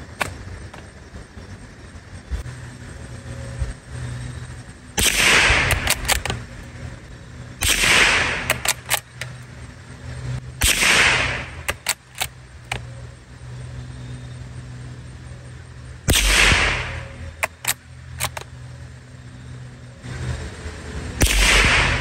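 Remington Sportsmaster Model 512 bolt-action .22 LR rifle firing five single shots several seconds apart. Each shot is followed by a few quick clicks as the bolt is worked to chamber the next round.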